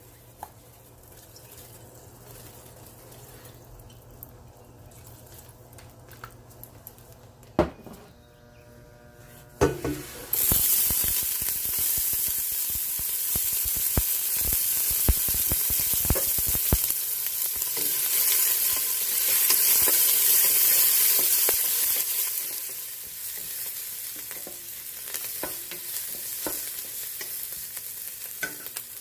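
Food frying in hot oil in a pan: after a quiet start with a few clicks, a loud sizzle begins suddenly about ten seconds in as the food goes into the oil, with utensil taps and scrapes against the pan while it is stirred; the sizzle eases somewhat toward the end.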